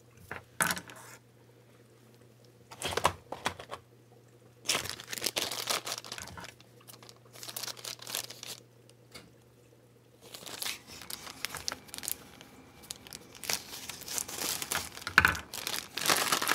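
Scissors cutting open plastic shipping packaging, with the plastic crinkling and tearing in several spells as it is opened and handled.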